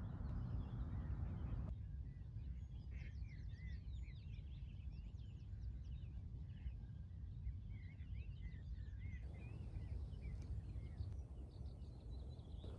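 Birds singing, many short rising and falling chirps overlapping, over a steady low rumble.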